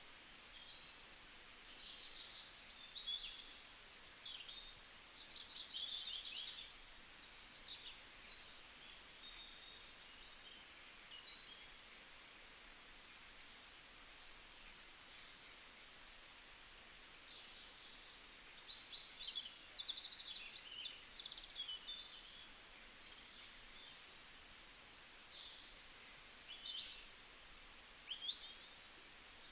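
Several birds chirping and singing at once, a busy mix of short high chirps and quick trills over a faint outdoor hiss.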